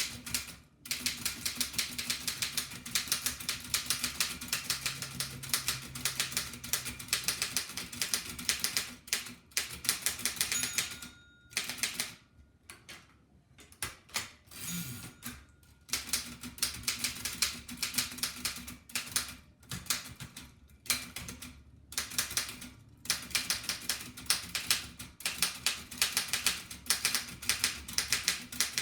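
1894 Densmore No. 1 typewriter being typed on fast, its type bars striking in rapid runs of sharp clacks. The typing pauses for a few seconds around the middle, then resumes.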